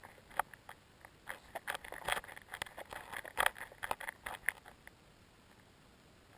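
Irregular sharp clicks and ticks picked up underwater, coming thick and fast from about a second in until about five seconds in, then thinning out to a few isolated ones.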